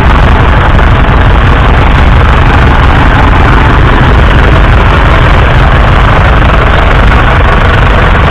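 1977 Massey Ferguson 575's 3.9-litre four-cylinder diesel engine idling steadily.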